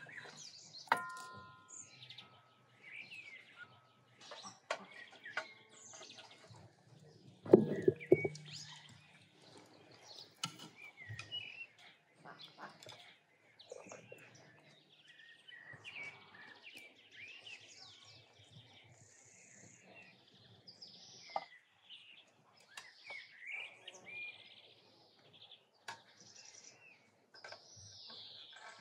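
Birds chirping and singing all around, with the clinks and knocks of a metal skimmer against an aluminium pot and pan as boiled meat on the bone is lifted out. There is a ringing metal clink about a second in and a louder, duller knock near eight seconds.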